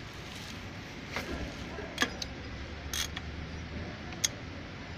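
A few scattered sharp metallic clicks and taps of hand tools working on a diesel injection pump as it is being unbolted, over a low steady hum.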